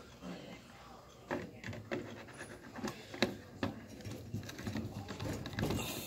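Plastic smoke detector head being handled and fitted onto its ceiling base: a run of irregular sharp plastic clicks and ticks, the loudest about three seconds in.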